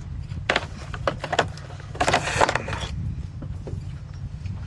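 Knocks and rattles of gear being handled while someone looks for pliers, in a few short bursts, the longest near the middle, over a steady low rumble of wind on the microphone.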